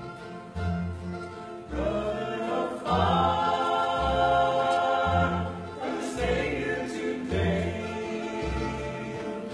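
Several voices singing a gospel song together, accompanied by strummed acoustic guitar and plucked upright bass keeping a steady beat. The voices come in about two seconds in, over the instrumental introduction.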